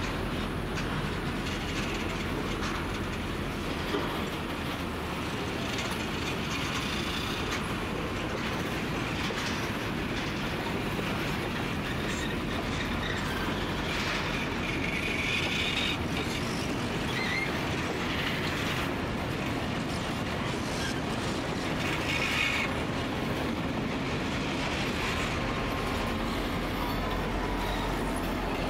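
Freight train of grain hopper wagons and diesel locomotives rolling slowly past as it backs out of a siding: a steady rumble of wheels and engines, with brief high wheel squeals several times, clearest about halfway through and again a little later.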